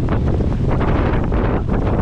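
Strong wind buffeting the microphone of a camera aboard a heeling Catalina Capri 22 sailboat, steady and loud, over the rush of water along the hull.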